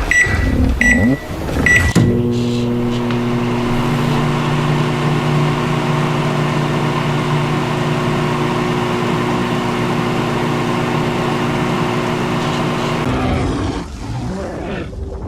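A few short, high beeps, then a steady machine hum with a low buzz that runs for about eleven seconds and stops near the end.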